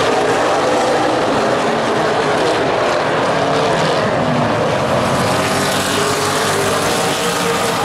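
Super late model stock cars running on a short oval track, the engines of several cars sounding at once with overlapping, wavering pitches at a steady loud level.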